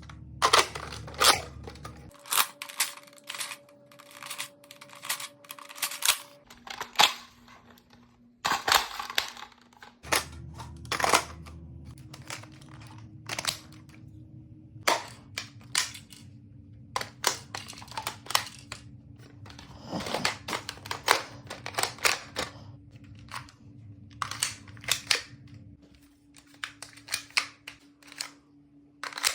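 Toy blasters being reloaded and cocked: quick runs of sharp plastic clicks and snaps, with short pauses between clusters, from magazines, darts, shells and slides being loaded and racked.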